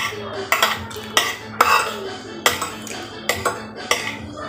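Metal cutlery clinking and scraping against a plate during eating: a run of sharp, irregular clinks, roughly two a second.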